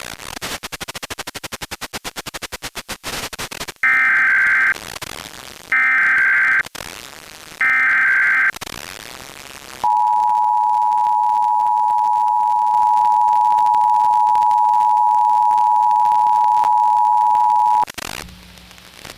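Emergency Alert System broadcast signals: three short, buzzy SAME data header bursts, then the steady two-tone attention signal (853 and 960 Hz) held for about eight seconds, which opens a required monthly test. Before the headers comes a few seconds of rapidly pulsing sound.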